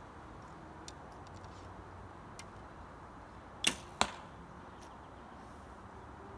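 A compound bow shot: a sharp snap as the string is released, then a second sharp crack about a third of a second later as the arrow strikes the target. A few faint clicks come before it.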